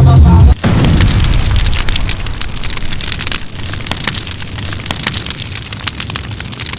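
Live band music stops abruptly about half a second in, followed by a crowd clapping, a dense patter of claps that slowly dies away.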